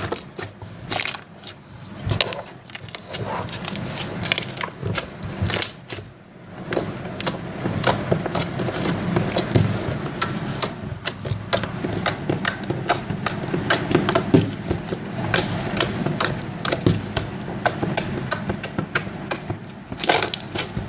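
Slime being pressed and squeezed by hand, giving a dense, irregular run of sharp wet clicks and pops as air pockets in it burst.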